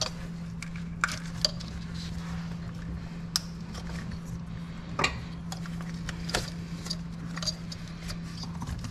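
Hands handling and unclipping plastic wiring-harness connectors and clips at the ignition coils, giving scattered light clicks and rattles over a steady low hum.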